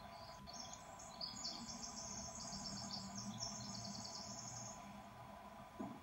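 A bird's high-pitched chirping trill: quick notes strung together in several runs for about four seconds, over a faint steady hum. A soft knock comes near the end.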